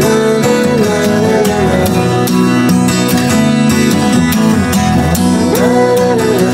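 Background music with plucked guitar-like strings and a melody line that slides up and down in pitch, in a country-like style.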